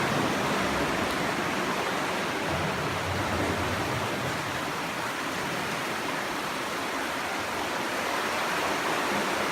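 Steady rushing of seawater surging and washing inside a sea cave.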